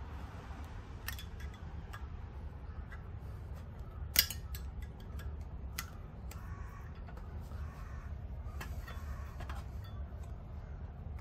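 Scattered small clicks, taps and light scrapes of hands and a tool working on an aluminium monoblock brake caliper in a metal tray while the old piston seals are picked out of its bores, with one sharp knock about four seconds in. A steady low hum runs underneath.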